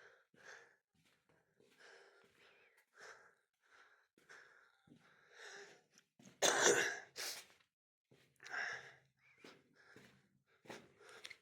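Footsteps scuffing on a tunnel floor at a walking pace, irregular, with one louder scrape a little past the middle.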